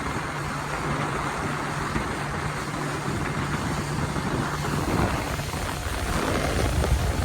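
Motorboat engine running steadily under way, a low even hum with a rush of wind and water over it.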